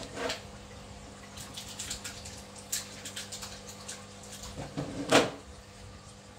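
Aquarium water splashing and dripping, with scattered small clicks and a louder splash about five seconds in, over a steady low hum from the tank's equipment.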